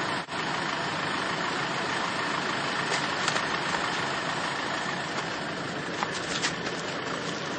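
Land Rover Defender engine idling steadily, with a few faint clicks around the middle and near the end.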